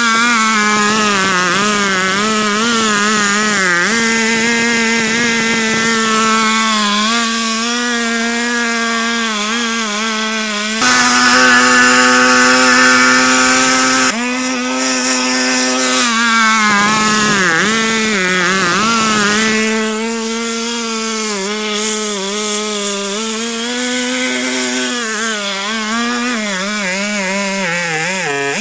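Two-stroke chainsaw running at full throttle as it rips a log lengthwise in a chainsaw mill, its engine pitch wavering and dipping as the chain loads up in the cut. For about three seconds near the middle it runs louder and steadier.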